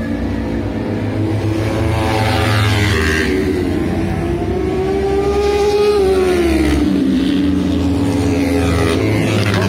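Racing motorcycle engine running hard as it accelerates down the track, its pitch climbing slowly and then dropping away about seven seconds in.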